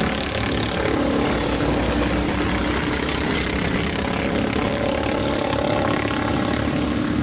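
Racing go-kart engines running at speed in a steady drone, the pitch shifting slightly as the karts go through the corners.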